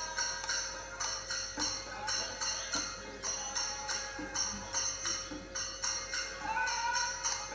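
Temple prayer music: bells and small metal percussion struck in a steady, jangling beat of about three strokes a second, with a wavering voice or held tone rising over it near the end.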